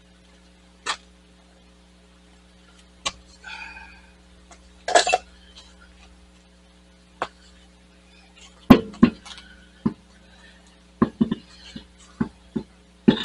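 Scattered knocks and metallic clinks as an alloy road wheel is hung on the brake hub and its lug nuts are started by hand, the loudest cluster about nine seconds in. A faint steady hum sits underneath.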